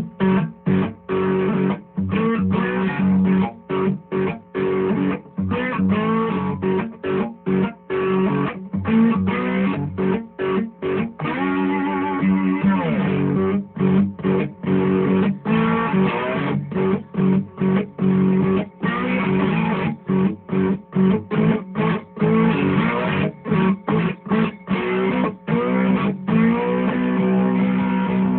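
A cigar box guitar being played in short rhythmic phrases with brief gaps between them, with a few notes gliding in pitch about twelve seconds in.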